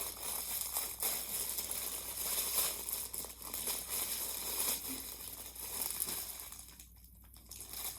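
Packaging crinkling and rustling as a fidget toy is unwrapped by hand, dying down about seven seconds in.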